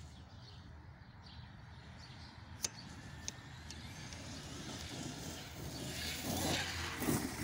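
Traxxas X-Maxx 8S RC monster truck running across grass, its brushless electric motor and drivetrain heard at a distance and growing louder toward the end. Two sharp clicks come about two and a half and three seconds in.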